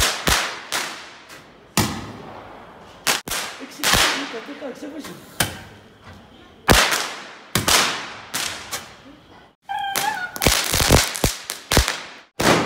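Firecrackers going off in a rapid, irregular run of sharp bangs, a dozen or more, each echoing briefly. A short high-pitched cry comes about ten seconds in.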